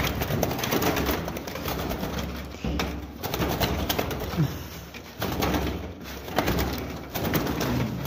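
Pigeons cooing close by, a low call repeated every second or two, over scratchy rustling and clicks of movement near the microphone.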